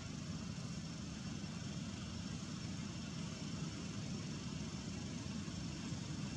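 Steady low rumble with a hiss of outdoor background noise, with no distinct event standing out.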